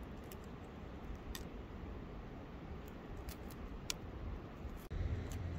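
Small, scattered crackling clicks of shell being peeled off hard-boiled eggs, over a steady rushing background noise. A little before the end the background jumps to a louder low rumble.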